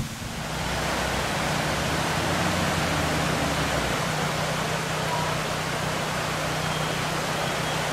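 Steady rushing hiss of a fast-flowing, rocky stream, with the low, even hum of a Land Rover engine running underneath.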